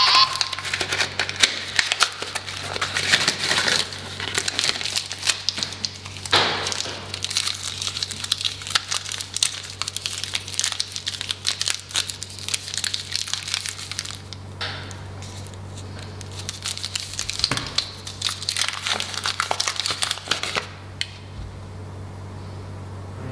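Kinder Chocolate wrappers being torn open and unwrapped by hand: dense, irregular crinkling and crackling that thins out near the end, over a low steady hum.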